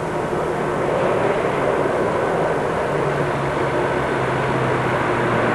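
Car engine running as the car comes slowly up the road behind a cyclist, a steady hum growing gradually louder as it approaches.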